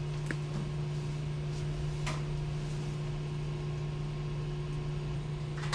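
Steady low mechanical hum of a running appliance, with a couple of faint ticks.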